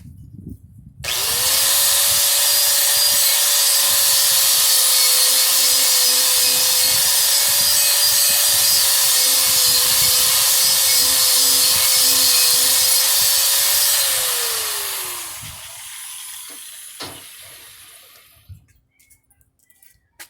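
Angle grinder with a wire brush wheel scrubbing slag off a weld bead. It starts about a second in and runs steadily with a whine for about thirteen seconds, then is let off and winds down.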